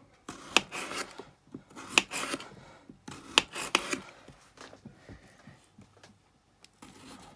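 A kitchen knife slicing a raw potato into rounds on a chopping board: a sharp knock each time the blade comes down on the board, with the rasp of the blade through the potato between knocks, quieter in the second half.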